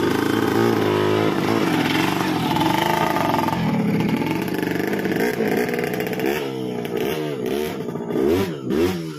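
Motorcycle engine running close by, with its pitch rising and falling several times in quick revs over the last few seconds.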